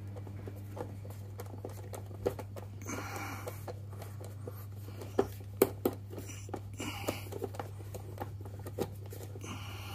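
Screwdriver turning the adjuster of a hot water cylinder's thermostat, giving scattered small clicks and scrapes as the stat is turned up, over a steady low hum.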